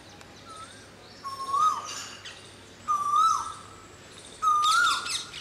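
A male Asian koel calling: four clear, whistled notes about a second and a half apart, each rising then dropping away, the loudest near the end. It is the male's call to attract a female, with thin higher chirps of other birds around it.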